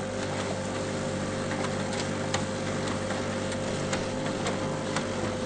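Photocopier running through a copy job: a steady motor drone with a constant hum tone and light, irregular clicks from the paper-feed mechanism.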